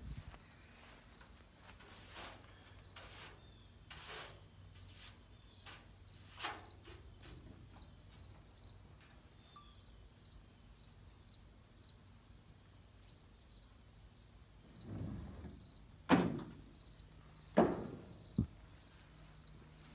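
Insects trilling in a steady, evenly pulsing high chorus. A few light clicks come in the first seconds, and three sharp knocks land close together near the end.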